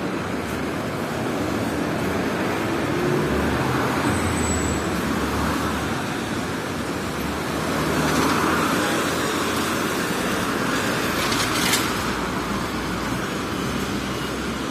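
Traffic on a wet city avenue: cars and a trolleybus passing, tyres hissing on the wet road, with the traffic noise swelling about eight seconds in. A short sharp click near the end.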